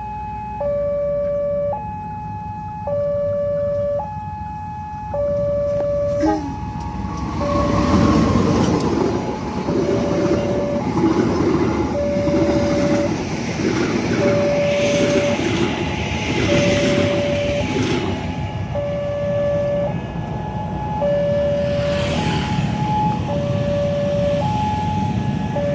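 A railway level-crossing alarm sounds its electronic two-tone signal, alternating low and high tones about once a second. About seven seconds in, a passenger train passes close by, its wheels rumbling and clacking over the rails. The train fades after about twenty seconds while the alarm keeps going.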